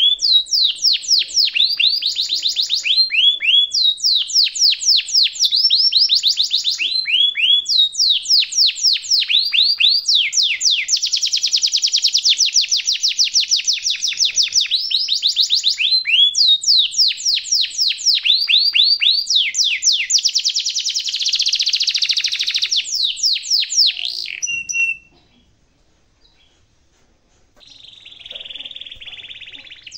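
Domestic canary singing a long rolling song: fast runs of quickly repeated high, falling trill notes. Near the end it breaks off for a couple of seconds, then starts again more softly.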